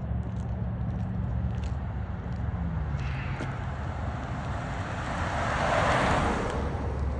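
A steady low droning hum, with a rushing noise that swells up and fades away about six seconds in.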